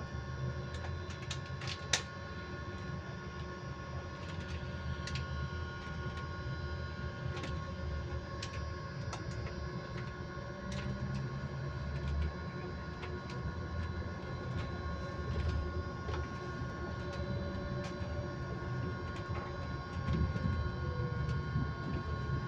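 Electric bus interior with a steady whine held at one constant pitch, made of several high tones that do not change, over low road rumble. Short rattles and clicks come and go, with a sharp click about two seconds in.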